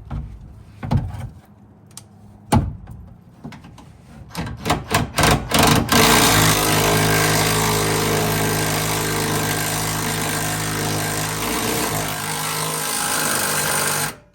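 A few knocks of metal parts being handled, then an impact wrench fired in several short bursts and run steadily for about eight seconds, tightening a nut until it is good and tight; it cuts off just before the end.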